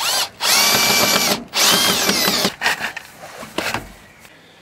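A 14.4 V cordless drill-driver runs in bursts, its whine rising each time the motor spins up, as it fixes a metal pipe sleeve to a timber wall. There are three long bursts, then two short ones around three seconds in.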